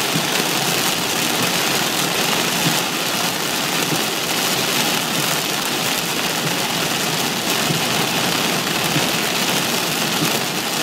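Loud, steady downpour of heavy rain hitting a moving car's roof and windshield, heard from inside the cabin and mixed with engine and tyre noise on the flooded road.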